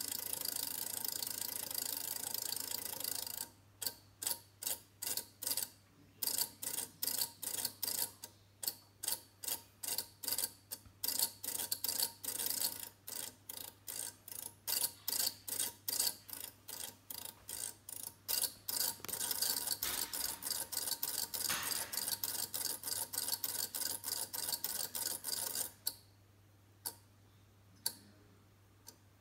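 Electromechanical seven-segment display from an old petrol pump, its segments flipping as the clock runs through its display patterns: a dense clatter of clicks at first, then rapid separate clicks about two to three a second, a dense clatter again for several seconds, and only a few single clicks near the end.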